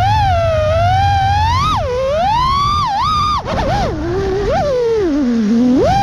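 6S FPV freestyle quadcopter's brushless motors and propellers whining, heard from the onboard camera: one pitched whine that rises and falls with the throttle. About three and a half seconds in it drops away and sinks low as the quad flips over, then climbs steeply near the end as the throttle is punched again.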